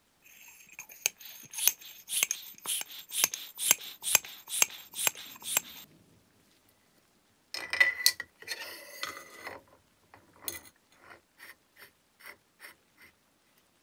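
Brass parts of an antique blowtorch's hand air pump and fittings clicking and scraping as they are worked and screwed together. There is a run of sharp metallic clicks about two a second, a scraping rattle about eight seconds in, then a row of lighter, quicker ticks.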